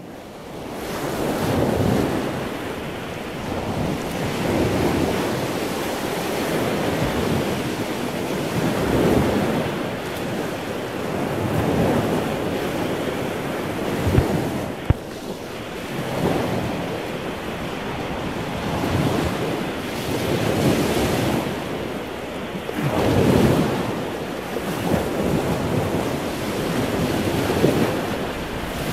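Sea waves washing in on a beach, surging and falling every few seconds, with wind buffeting the microphone. Two sharp clicks about halfway through.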